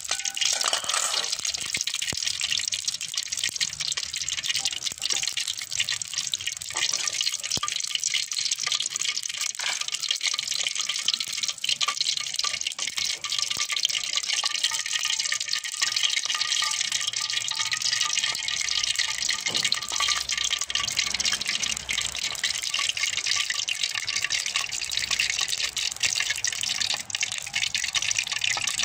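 Kokis batter frying on a rosette mould held in a wok of hot oil: a steady sizzling hiss full of fine crackles.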